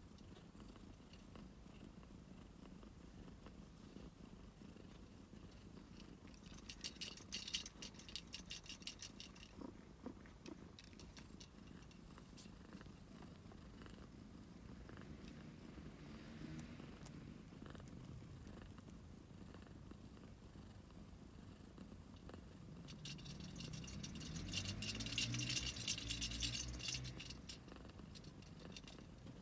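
Domestic cat purring steadily. Two spells of rapid fine crackling come through, about seven seconds in and again near the end, the second louder.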